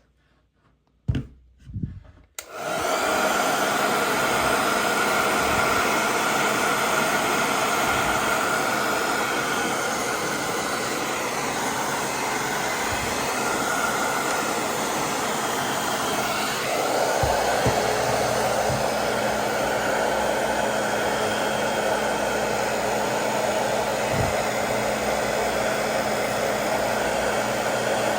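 Hair dryer switched on after a couple of short knocks, then blowing steadily. Its tone shifts and grows fuller about two-thirds of the way through.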